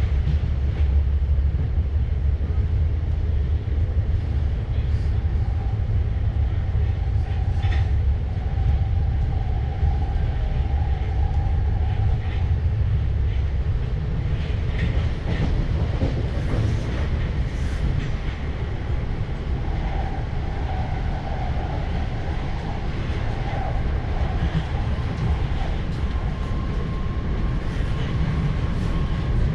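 Electric suburban passenger train running between stations, heard from inside the carriage: a steady low rumble with scattered wheel clicks over the rails and a faint whine that comes and goes.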